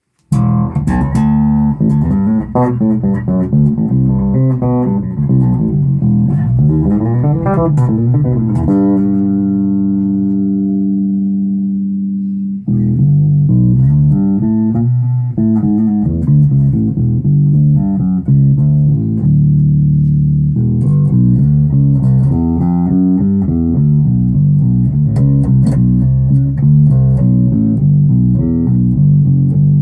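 Zoot Wal-a-Like electric bass played through a Gallien-Krueger amplifier and a 1x12 speaker cabinet: a run of plucked notes, then a held note left to ring and fade for a few seconds, then more busy playing.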